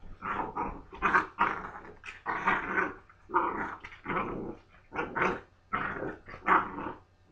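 Doberman and blue nose pit bull puppies growling as they play-fight: a quick string of short growls, one about every half second, with brief gaps between them.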